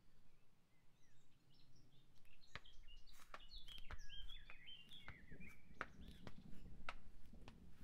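Faint bird chirps over low background noise, with soft irregular taps of footsteps in sandals on a hard floor.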